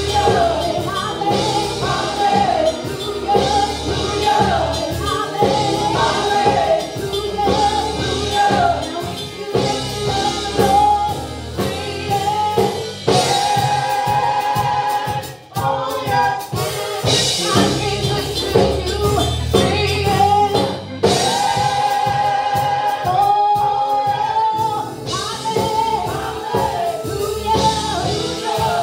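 A gospel praise-and-worship team of several women and men singing into microphones over instrumental backing, a continuous song with held sung lines.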